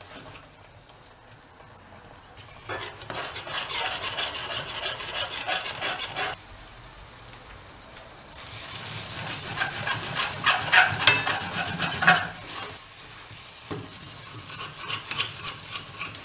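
Thick masala paste sizzling in hot oil in a metal pan while a steel spoon stirs and scrapes it; the spices are being fried until the oil separates. Faint for the first couple of seconds, then louder stirring from about three seconds in, with the busiest scraping from about eight to twelve seconds.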